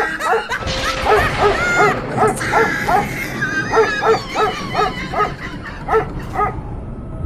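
A dog barking over and over, about two or three barks a second, in a dog barking at night.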